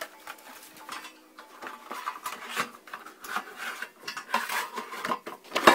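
Metal parts and screws clinking and rattling as a treadmill is put together by hand, with irregular small knocks and a louder knock near the end.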